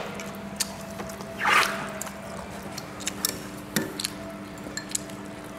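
Eating at the table: light clicks of chopsticks against ceramic bowls and plates, with wet chewing and slurping sounds and one louder smack about a second and a half in, over a faint steady hum.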